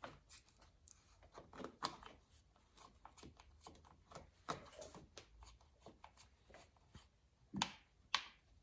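Faint, scattered clicks and light rattles of a saw chain and guide bar being handled and fitted by hand onto an Echo CS-2511T chainsaw, with two sharper clicks near the end.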